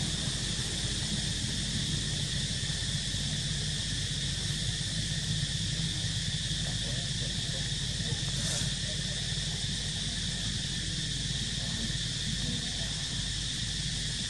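Steady insect chorus droning at a constant high pitch, with a low steady hum underneath.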